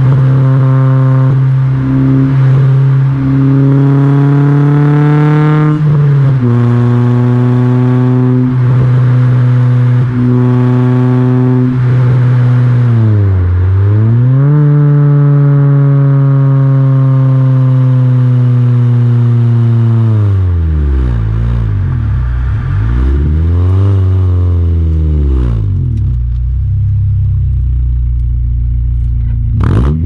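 Exhaust note of a Honda Prelude's H22 2.2 VTEC inline-four through a full SRS stainless exhaust with no catalytic converter, heard at the tailpipe while driving. The engine holds steady revs with a few quick drops in pitch, then the revs slowly fall and swing down and up several times before settling at a low, steady note near the end.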